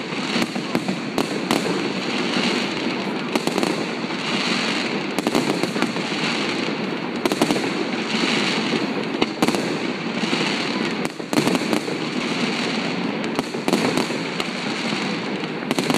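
Fireworks display: a dense, continuous run of bangs and crackling, many bursts overlapping with hardly a pause, and a short lull about eleven seconds in.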